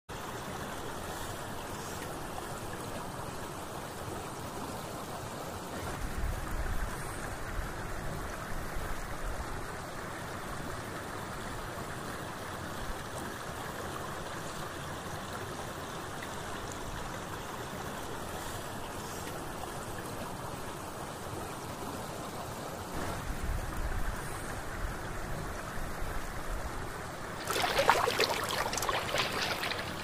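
Steady rushing of flowing river water, with two stretches of low rumbling. About two and a half seconds before the end a louder burst of crackling, splashy noise sets in.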